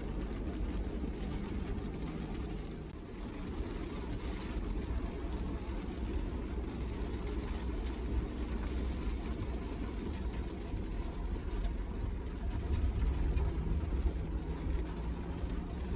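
Car running along, a steady low engine and road rumble without clear knocks or rhythm.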